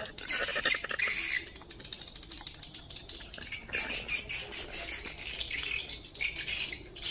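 Birds calling and squawking, with many small clicks and crackles.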